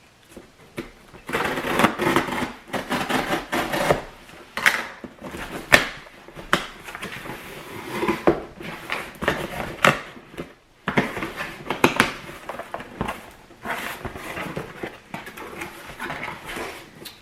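An Amazon cardboard shipping box being opened by hand, its packaging rustling and crinkling in irregular bursts, with sharp clicks and knocks, starting about a second in and pausing briefly partway through.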